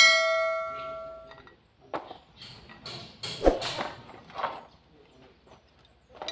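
Heavy steel tractor hub parts being handled: a metal part is struck and rings for about a second and a half, then come scattered knocks and clunks as the housing and gears are moved about, the loudest about three and a half seconds in.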